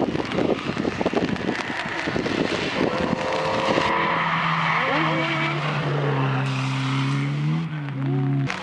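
Rally car engine at speed on a wet stage, coming closer. A rough, crackly noise fills the first few seconds, then a clear engine note holds and steps in pitch a few times as the driver changes gear.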